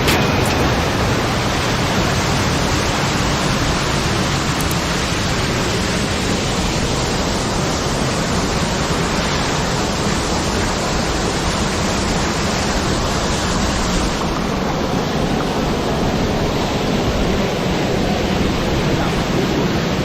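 Steady rush of water falling and splashing at a waterfall.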